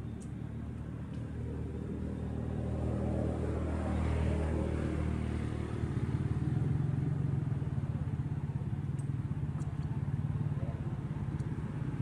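A motor vehicle's engine running steadily, growing louder over the first few seconds, with a shift in its pitch about six seconds in.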